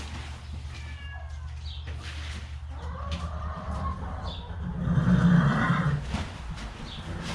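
Farm animals calling: a short, high, falling call about a second in, then a louder, longer, lower call that peaks around five seconds in.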